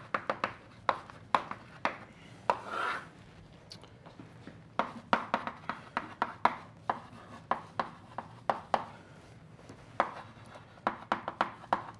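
Chalk writing on a blackboard: a string of sharp, irregular taps and short scratches as letters are drawn, with a brief pause about four seconds in.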